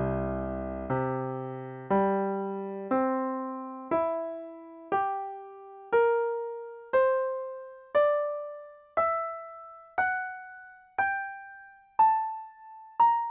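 Piano notes playing the harmonic series on C, one note a second, each struck and left to die away. They climb from a low C through C, G, C, E, G, B-flat, C, D, E, F-sharp, G and A to B-flat, the steps between notes shrinking as they go up.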